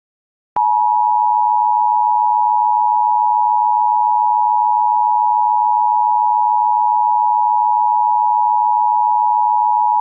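Emergency Alert System attention signal: a loud, steady two-tone alert tone that starts about half a second in and holds without change. It is the signal that announces an emergency alert broadcast.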